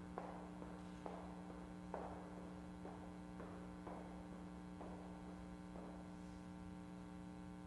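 Footsteps of hard shoes on the church's stone chancel steps, knocking about once a second with an echo in the big room and stopping near the end, over a steady electrical hum.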